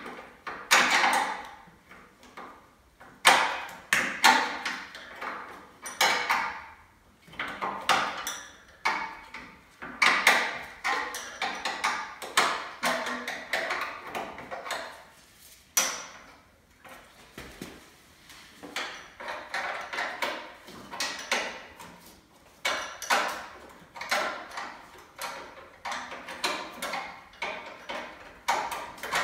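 Irregular metallic clinks, scrapes and rattles of a hand tool working fasteners and sheet-metal engine tin on a VW 1600 dual-port engine during teardown.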